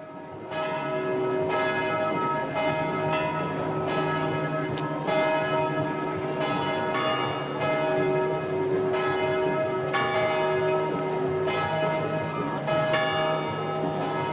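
Church bells ringing: several bells of different pitch strike in turn, about once a second, and their tones overlap and hang on.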